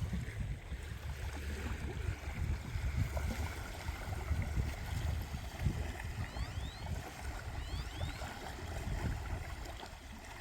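Wind buffeting the microphone over small waves washing onto the beach, a steady noisy rumble. A few short rising chirps come through a little past the middle.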